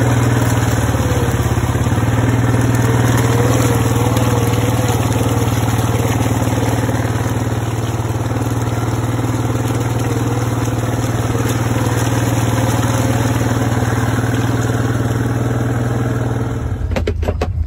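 Can-Am Defender side-by-side utility vehicle running steadily as it drives through a muddy field track, its tyres churning through wet mud. The engine eases off near the end.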